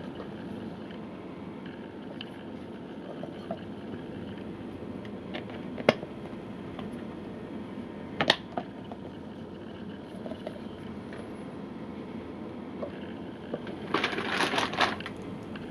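Handling noise from scuba fins being unwrapped: clear plastic packaging rustling and crinkling, with two sharp taps about six and eight seconds in and a louder burst of crinkling near the end, over a steady background hum.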